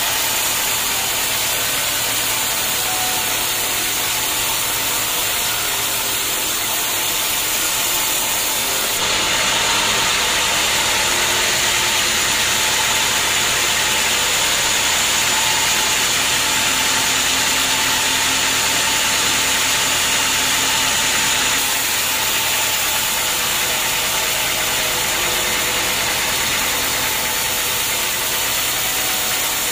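Band sawmill running, its blade ripping lengthwise through a teak beam: a steady loud machine noise with a sawing hiss. It grows louder and brighter about nine seconds in and eases back a little around twenty-two seconds.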